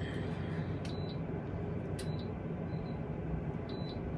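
A few short, high beeps from a Magic Mill food dehydrator's touch-button control panel as the temperature is stepped down, over a steady low hum.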